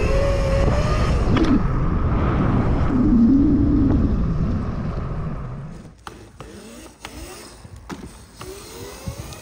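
Converted Razor RSF650 electric dirt bike (Electro & Co. kit on a 72 V battery) riding hard: heavy wind noise on the onboard microphone and the electric motor's whine, rising and falling in pitch with the throttle. About six seconds in, the sound drops to a much quieter scene with a few sharp clicks and a faint motor whine rising again.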